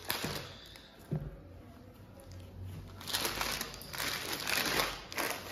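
Cloth rustling and crinkling as folded printed suit fabric is unfolded and handled by hand. There are a couple of light knocks in the first second or so, and the rustling grows louder and busier about three seconds in.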